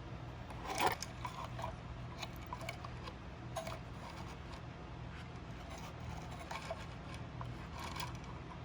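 Small parts of a cuckoo clock being handled: light clicks and scrapes, with one louder knock about a second in, over a steady low hum.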